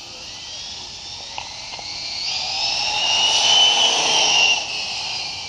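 Arrma Typhon 6S 1/8-scale RC buggy's brushless motor and drivetrain whining at speed on the road. The high-pitched whine grows louder as the car approaches, is loudest about three to four and a half seconds in with its pitch gliding, then falls away suddenly as it passes.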